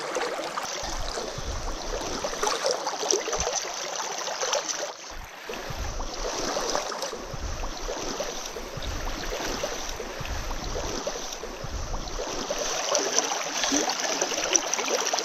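Shallow mountain stream rushing over rocks, a steady wash of water. Occasional low bumps come through on the microphone.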